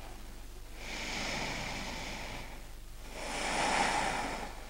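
A person breathing audibly through the nose in a yoga pose: two long, slow breaths, the second a little louder.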